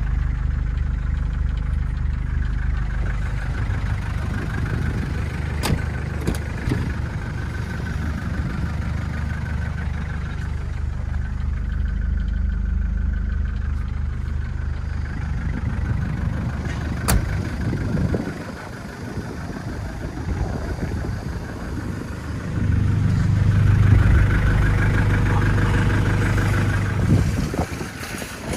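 1998 Hyundai Galloper II engine idling steadily, with a couple of sharp clicks. The engine note gets louder near the end.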